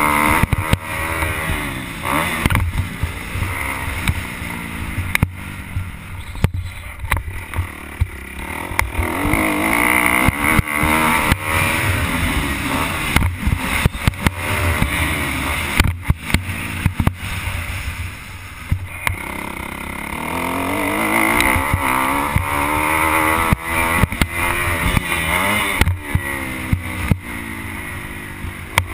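Dirt bike engine revving up and down as it accelerates and shifts along a motocross track, with wind buffeting the microphone and knocks from the rough ground.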